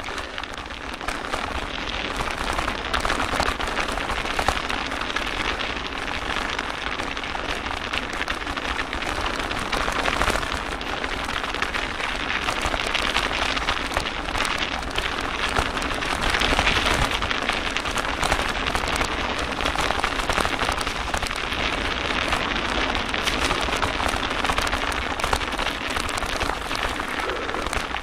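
Mountain bike ridden over a snowy forest trail: a dense, continuous crackle of tyres on snow and rattling, over a steady low rumble.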